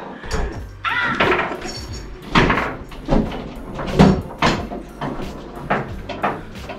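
A string of irregular knocks and thuds, roughly one or two a second, with no steady sound beneath them.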